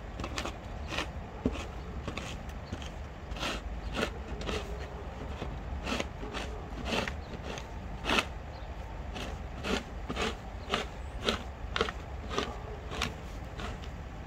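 Footsteps crunching through deep fresh snow at a walking pace, about two steps a second, over a low steady rumble.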